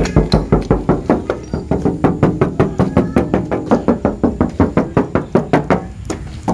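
Fingers tapping rapidly on the steel body panels of a 1995 Daihatsu Feroza, about six light knocks a second, each with a short ring from the panel. The tapping breaks off briefly about six seconds in.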